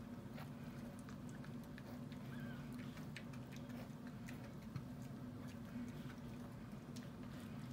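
Faint scattered clicks and rustles from a Miniature Schnauzer and her newborn puppies moving about, with one brief faint squeak about two seconds in, over a steady low hum.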